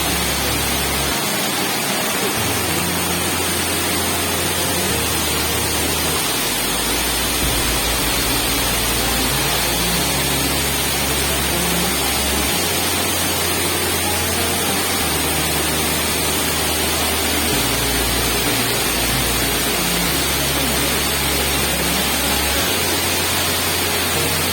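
Waterfall's steady rush of falling water, a loud even noise with no breaks.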